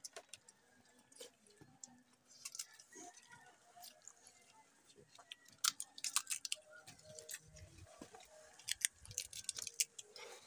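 Close-up eating sounds: chewing and the sharp cracks of cooked blue swimming crab (alimasag) shells being broken open by hand and teeth, scattered and busiest in the second half.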